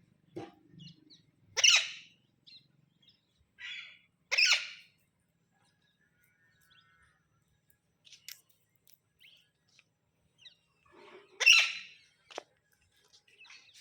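Pet parrot calling: three loud, sharp shrieks, about two seconds in, about four and a half seconds in and again near the end, with softer chirps and squeaks between.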